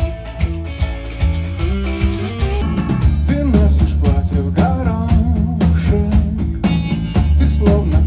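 Rock band playing live, with drums, bass, guitars and keyboard, in a passage without words. From about three seconds in, a lead melody that slides and bends in pitch rises over the band, which grows a little louder.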